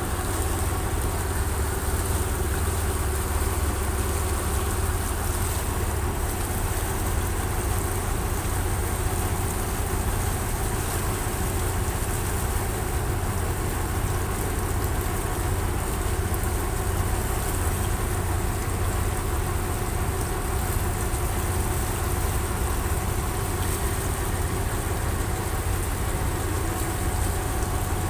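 Boat engine running steadily, a constant low drone heard on board.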